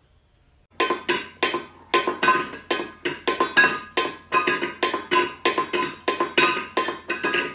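A small metal bowl clinking and ringing repeatedly against a tiled floor as a cat eats from it, about three or four strikes a second, starting about a second in.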